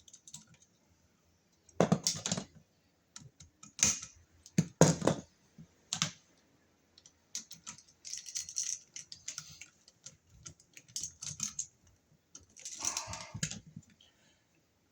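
Irregular small clicks, taps and brief scrapes of hand tools and wire being worked at an electrical outlet: a conductor bent into a loop and hooked around the receptacle's terminal screw.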